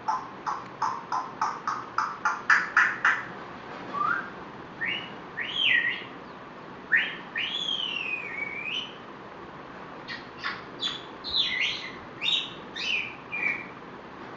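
African grey parrot whistling and chirping: a quick run of short sharp notes, about four a second, growing louder, then long whistles that slide up and down, then a burst of short chirpy whistle notes near the end.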